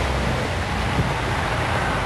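Steady rush of wind on the microphone in a blizzard, mixed with a box truck driving by on the snowy street.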